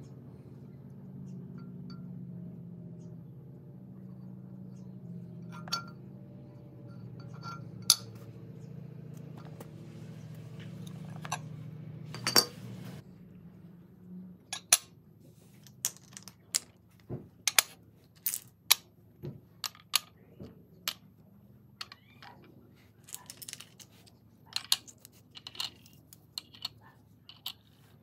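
Cast aluminum and copper ingots and aluminum rounds clinking as they are set down and stacked on a glass-topped digital scale: a few knocks in the first half, then a quick run of many sharp clinks in the second half. A low steady drone underneath fades out about halfway through.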